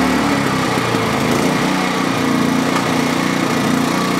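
Energizer eZV2000P portable inverter generator running. A fraction of a second in its engine note drops and settles to a lower, slightly unsteady speed as economy mode is switched on and the unit throttles down.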